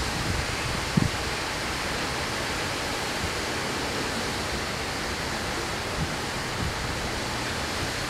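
Steady outdoor hiss with no duck calls, and a short low bump of wind on the microphone about a second in.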